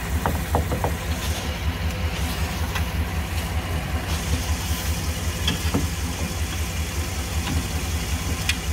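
An engine idling steadily, with a few light metallic clicks and taps as a new wheel hub bearing assembly is slid onto the steering knuckle and lined up.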